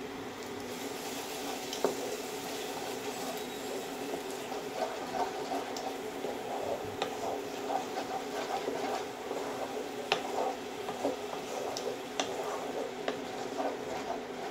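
Wooden spatula stirring curd into fried masala in a nonstick kadai, scraping and now and then knocking against the pan over a steady low sizzle.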